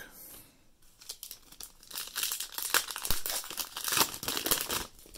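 Foil wrapper of a basketball trading-card pack being torn open and peeled back by hand: dense crinkling and tearing that starts about a second in and stops shortly before the end.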